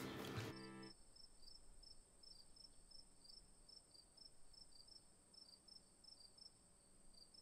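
Faint cricket chirping, a few evenly spaced chirps a second, after the background music stops about half a second in.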